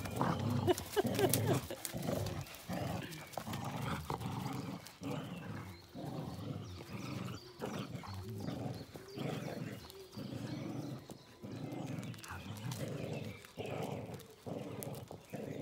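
Dogs growling in play while tugging on a rope toy, in short growls repeated over and over.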